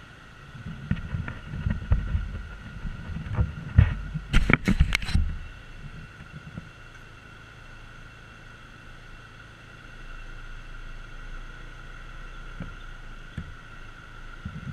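Small scooter engine idling and pulling forward a short way. A louder stretch of low rumble with a few sharp knocks comes from about a second in to five seconds in, then the engine settles back to a steady idle.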